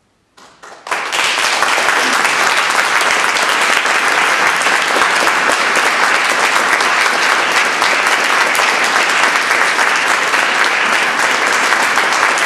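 Audience applauding: a few first claps, then full, steady applause from about a second in.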